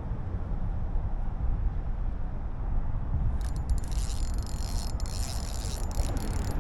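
A fishing reel whirring with a fast, dry, rattling clicking that starts about halfway through, over a steady low rumble.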